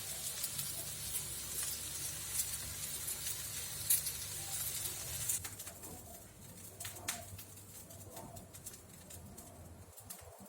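Tofu frying in hot oil in a pan: a steady sizzle with scattered pops and crackles. About halfway through, the sizzle drops away, leaving only occasional small pops.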